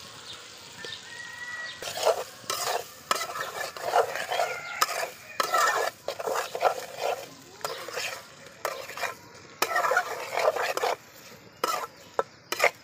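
A flat metal spatula scrapes and stirs fried potatoes through sizzling spice paste in an aluminium karai. At first only a steady sizzle is heard; from about two seconds in, the spatula's scrapes against the pan come in irregular strokes with short pauses.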